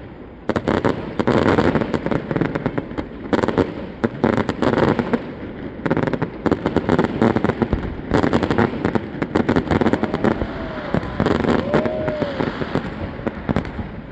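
Fireworks display: a dense, rapid stream of shell bursts, bangs and crackles, going on without a break.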